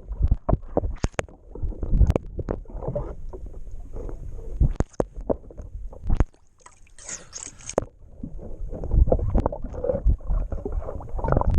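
Water sloshing and gurgling around a small wooden boat, with frequent irregular knocks and thumps, and a brief hiss about seven seconds in.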